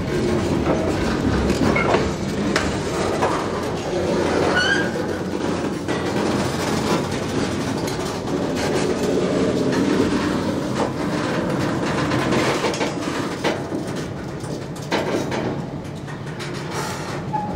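Diesel switcher locomotive approaching at the head of a freight train: its engine running steadily, with the rumble and clatter of the locomotive and cars rolling over the rails.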